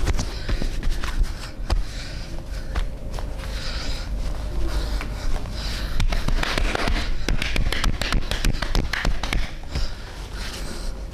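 Hands slapping and tapping on skin during a percussive massage, with a fast run of slaps in the middle.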